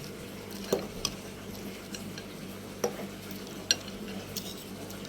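Metal utensils clink sharply against dishware four times, over a steady low hum.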